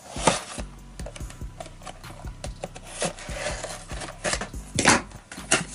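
An action figure's cardboard window box being handled and opened: rubbing and scraping of card and plastic with light knocks and clicks, a sharper knock just after the start and another near the end.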